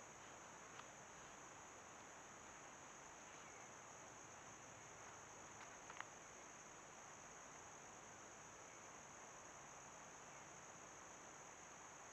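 Near silence: a faint, steady, high-pitched insect chorus of crickets over background hiss, with a faint click about six seconds in.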